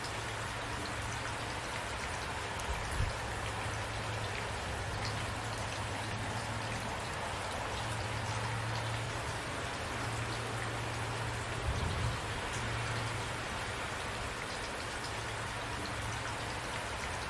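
Steady rain falling and pattering on a surface, an even hiss of many drops, with a couple of brief low thumps about three seconds in and again past the middle.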